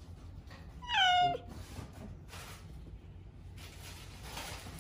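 Domestic cat meowing once from inside a plastic pet carrier: a single call of about half a second whose pitch falls toward the end.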